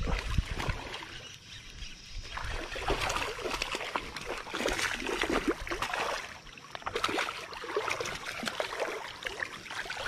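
Irregular splashing and trickling of creek water as a hooked smallmouth bass is played in.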